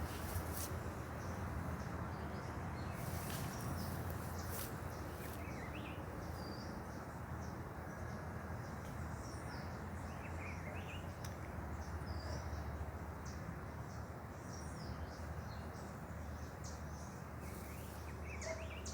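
Outdoor ambience: a steady background noise with scattered short bird chirps and a few faint clicks.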